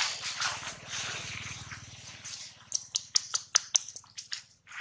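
Dry leaf litter rustling as macaques move over it, then a quick run of sharp crackles and crunches in the second half.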